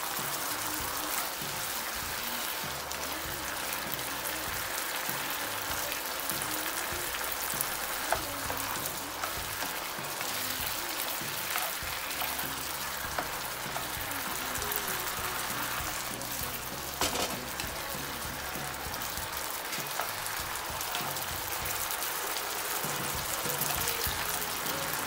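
Pork pieces sizzling steadily in a nonstick frying pan as the sauce, just thickened with a cornflour slurry, cooks down on high heat. A spatula is stirred through it, with a few sharp taps against the pan.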